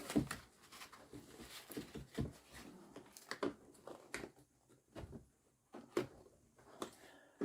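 Scattered light clicks and knocks at irregular spacing, from hands working on a car door's plastic switch, lock and trim parts. There is a quieter stretch around five seconds in.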